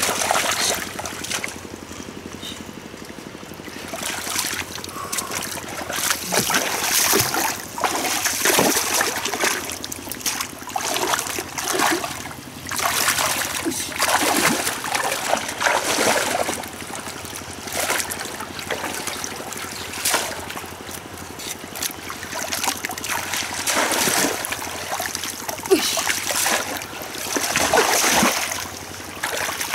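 Shallow muddy water splashing and sloshing as someone wades and scoops through it with a wire-mesh scoop, in irregular bursts every second or two.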